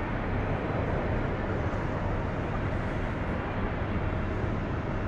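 Steady cabin noise inside a CRJ-1000 regional jet: an even rush of jet engine and airflow noise over a constant low hum.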